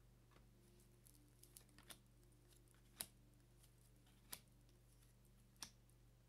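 Faint clicks and snaps of tarot cards being handled and laid down on a cloth-covered table, three louder ones about a second apart, over a low steady hum.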